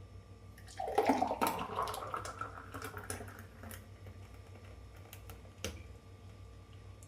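Thick banana smoothie poured into a glass: a gurgling pour starts about a second in and fades out over two to three seconds, followed by a few light taps.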